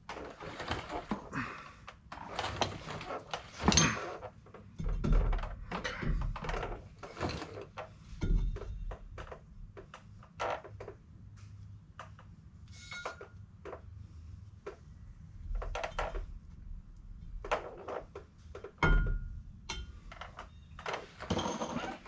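Irregular metal clunks, knocks and scraping as a heavy truck driveshaft is handled and worked into place by hand, with a few heavier thuds.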